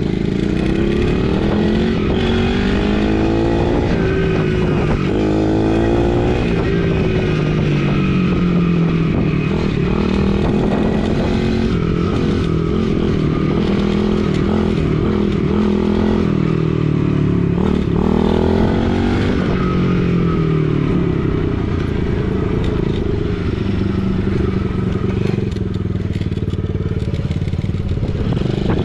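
Small gas dirt bike engine running under throttle while riding, its pitch climbing and dropping again and again as the rider accelerates and eases off.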